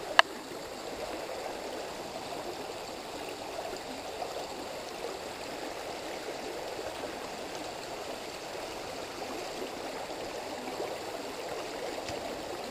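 Rocky-bottomed mountain creek flowing over stones: a steady rush of running water, with one sharp click just after the start.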